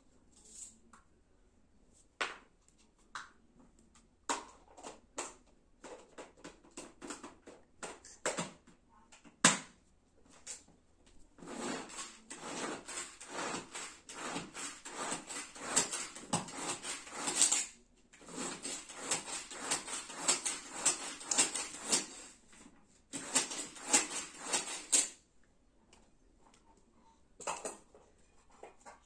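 Knife cutting up vegetables held in the hand: a few separate cuts at first, then long runs of quick, rapid strokes from about a third of the way in, broken by two short pauses and stopping a few seconds before the end.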